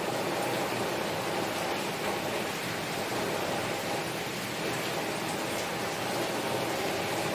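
Steady rain falling on a window, an even noise with no breaks or changes.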